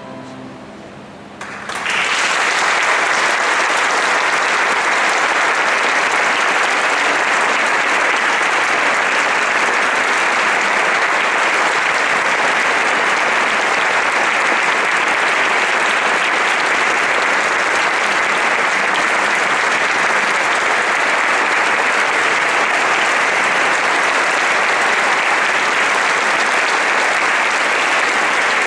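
The last sustained chord of the choir and strings fades away, and about a second and a half in the audience breaks into steady applause that carries on throughout.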